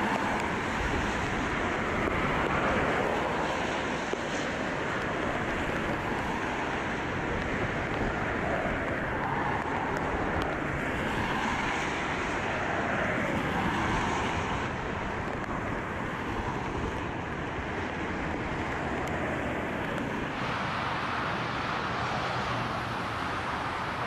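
Jet airliner engines on approach, a steady rushing noise, with strong wind buffeting the microphone.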